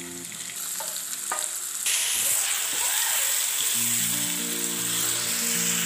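Marinated pork pieces dropping into hot oil in a karahi and sizzling loudly from about two seconds in, with a spatula stirring them. A few knocks of the steel bowl and spoon come before the sizzle.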